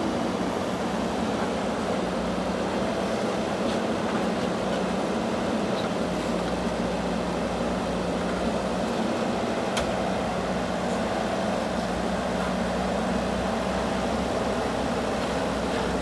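Diesel engine of a JCB 3DX backhoe loader running at a steady pitch while its backhoe arm digs soil, with one faint tick about ten seconds in.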